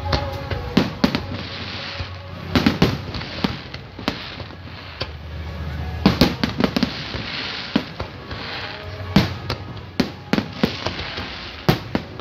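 Fireworks display bursting overhead: sharp bangs coming in irregular clusters of several in quick succession, over a steady crackling hiss.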